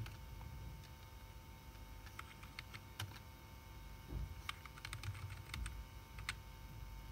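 Computer keyboard keys tapped lightly, single clicks and short quick runs of several, as the setup screens are stepped through. A faint steady hum sits underneath.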